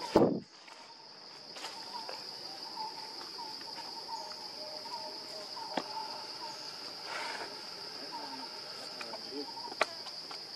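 Steady high-pitched drone of insects such as cicadas or crickets, with a brief loud thump right at the start and a couple of sharp clicks later on.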